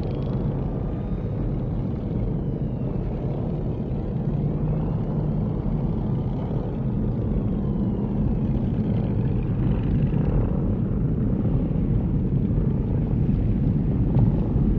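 Engines of many vehicles in a convoy circling far off, blending into one steady low rumble, with faint engine whines rising and falling over it. The rumble grows slowly louder.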